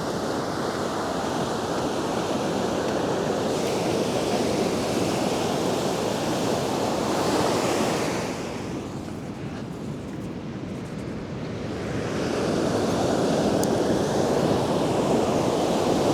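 Ocean surf washing steadily onto the shore, easing for a few seconds around the middle and then building again as the next waves come in, with some wind noise on the microphone.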